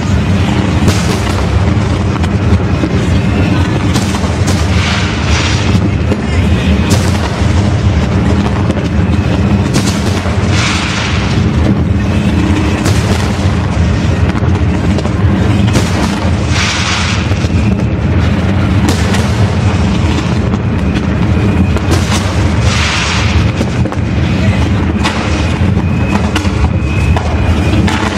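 Fireworks display going off loudly in a dense, continuous run of booms and bangs from bursting shells, with no break.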